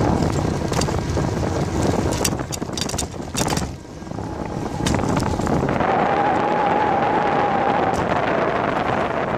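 Wind buffeting the microphone over the rumble of a bicycle rolling on pavement, with a burst of rattling clicks about two to four seconds in. A faint steady tone sounds through the second half.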